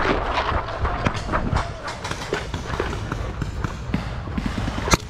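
Paintball players running, with quick footfalls and gear rustling and knocking, then a single sharp crack of a paintball marker firing near the end.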